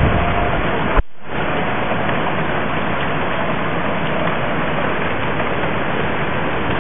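Heavy rain mixed with hail pouring down in a severe storm, a loud steady hiss. Wind buffets the microphone at first, then the sound cuts out briefly about a second in and the downpour resumes evenly.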